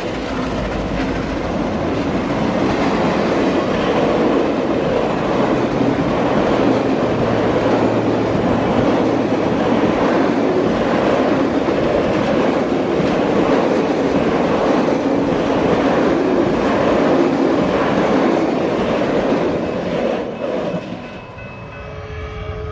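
Tender and passenger cars of a steam-hauled passenger train rolling past at speed: a steady rumble of wheels on rail with a rapid clickety-clack over the joints. The sound fades away about twenty-one seconds in.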